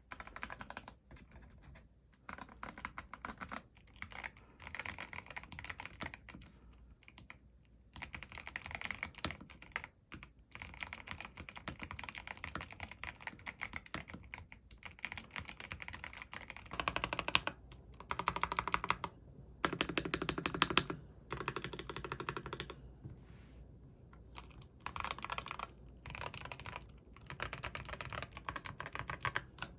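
Typing on a YUNZII B75 Pro 75% gasket-mount mechanical keyboard fitted with Milk linear switches: runs of rapid keystrokes broken by short pauses, with a louder stretch about two-thirds of the way through.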